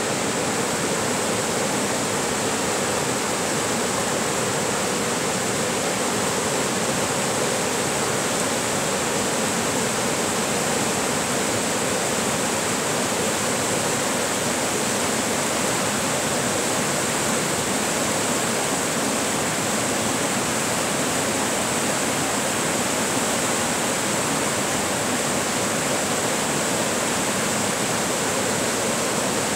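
White-water rapids on a wide river, the water rushing steadily over rocks.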